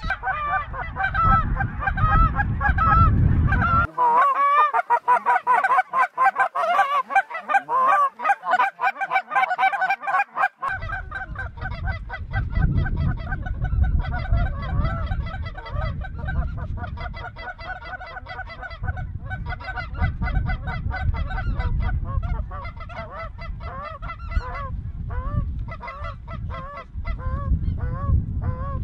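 A large flock of geese calling overhead: many short honks and yelps overlapping in a continuous chorus.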